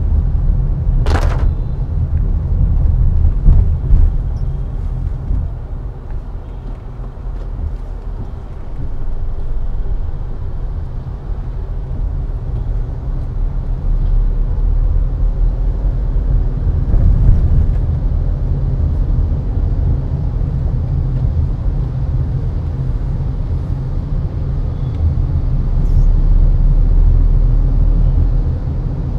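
Car driving on city roads: a steady low rumble of engine and road noise that swells and eases. A brief sharp sound cuts in about a second in.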